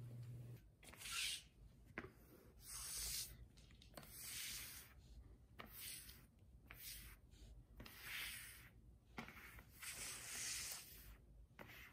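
Rubber-bladed squeegee broom sweeping cat litter granules across a wooden floor in short repeated strokes: faint scratchy swishes, about one a second, with a couple of sharp ticks.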